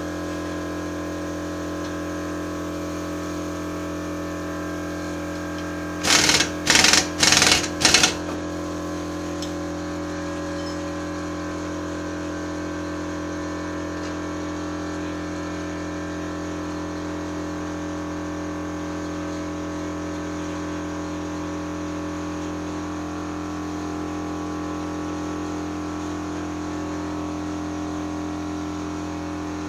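Four short bursts of a pneumatic impact wrench rattling at the shock absorber's strut bolts, about six seconds in, over a steady machine hum.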